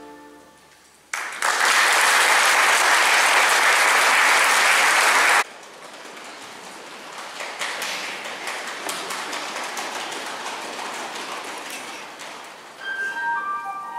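Audience applauding, loud for about four seconds and then cut off abruptly. A softer, crackling patter of clapping follows, and instrumental notes start near the end.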